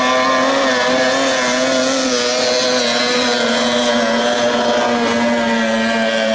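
Outboard engines of 30 hp tunnel racing boats running flat out, a steady high-pitched engine drone whose pitch sags slowly.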